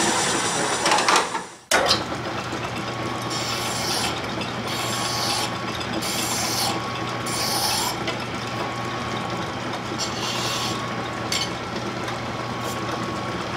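Metal lathe running with a steady hum while a hand file is drawn across the spinning turned metal workpiece: about five rasping strokes in a row, then two more a couple of seconds later.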